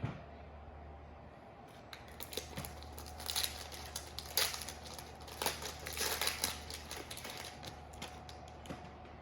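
A single knock at the start, then several seconds of irregular crinkling and rustling from a foil trading-card pack wrapper being handled.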